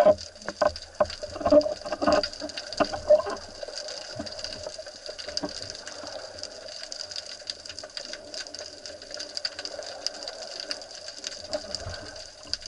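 Sea water sloshing and splashing around a camera held half under the surface, with a quick run of sharp clicks and knocks in the first three seconds or so, then a steady hiss.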